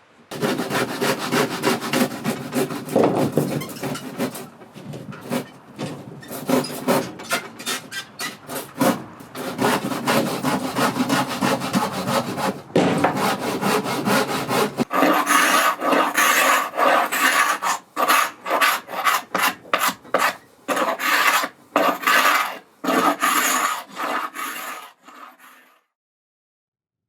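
A hand tool worked back and forth on old wooden door boards in quick, rasping strokes. From about halfway the strokes get harsher with a faint ringing tone, and they stop abruptly shortly before the end.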